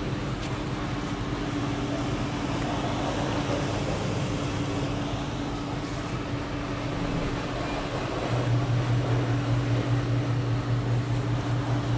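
Sunseeker 88 motor yacht's machinery running at close-quarters docking speed: a steady hum, with a deeper, louder hum joining about eight seconds in.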